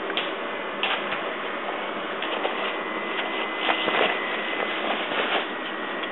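Empty plastic water bottles crinkling and clattering as a puppy noses and pushes through them, in irregular bursts of crackles over a steady hiss.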